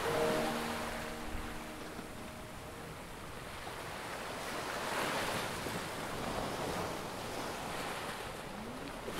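Ocean surf washing onto the shore, a steady rush that swells as a wave breaks just after the start and again about five seconds in.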